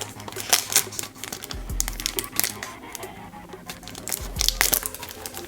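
Foil booster pack wrapper crinkling and tearing as it is opened by hand, over background music.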